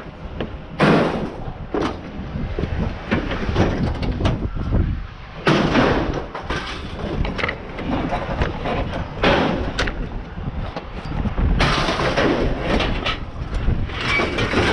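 Scrap metal being handled and moved: a series of bangs, clanks and rattles, with loud hits about a second in, at five and a half, at nine, and a longer clatter around twelve seconds in.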